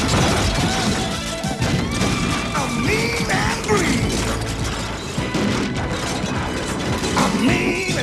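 Film action soundtrack of crashing, clattering destruction over music, with wavering wails that rise and fall about three seconds in and again near the end.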